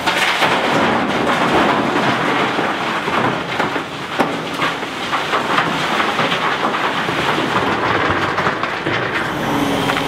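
Rock pouring from a Volvo L350H wheel loader's bucket into the steel dump body of a Volvo A60H articulated hauler: a dense clatter and rumble of stones striking the bed, over the machines' diesel engines. About nine seconds in the clatter dies away, leaving the engines running.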